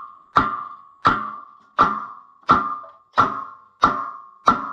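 Hammer blows on steel: a steady beat of about seven strikes, each ringing out with a clear bell-like note that fades before the next. The hammering is driving a stuck part off a tractor's rear wheel.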